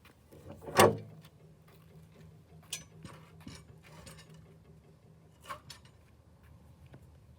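Handling noise of a camera being held and moved: a loud knock about a second in, then scattered clicks and taps.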